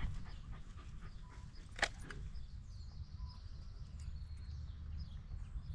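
A dog panting quietly over a steady low rumble, with one sharp click just under two seconds in.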